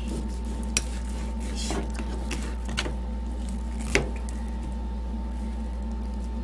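Chef's knife cutting raw chicken thigh on a plastic cutting board: a few sharp taps of the blade striking the board, the loudest about four seconds in. A steady low hum runs underneath.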